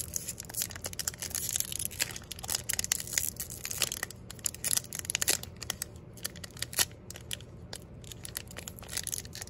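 Foil wrapper of a Pokémon Shining Fates booster pack crinkling and tearing as it is picked open by hand, a dense run of irregular crackles.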